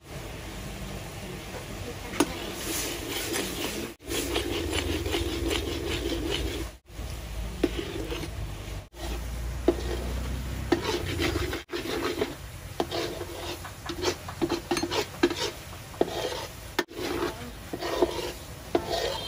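Metal tongs scraping and stirring in a metal wok of boiling sugar syrup over a steady bubbling hiss. The scrapes come in quick irregular runs, denser in the second half, and the sound breaks off briefly a few times.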